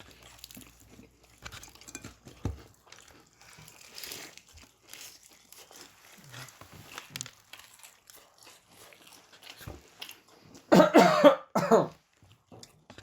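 A man coughing, two loud harsh coughs close together about eleven seconds in, while eating very spicy fried chicken; faint chewing and crunching before them.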